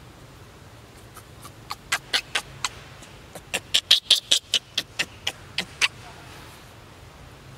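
Baby macaque giving a rapid run of short, high squeaks, about four a second, loudest in the middle and stopping about six seconds in.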